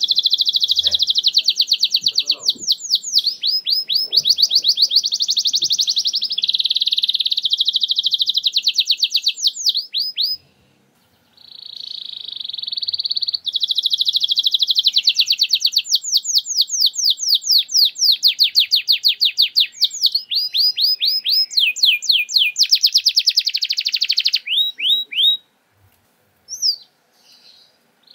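Domestic canary singing long, rapid rolling trills of fast repeated notes, the 'nembak' style of canary song. There is a short pause about ten seconds in, and the song breaks off near the end with a few last notes.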